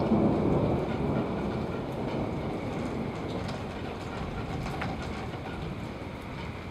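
Rolling thunder rumbling, swelling briefly near the start and then slowly fading away, with rain falling.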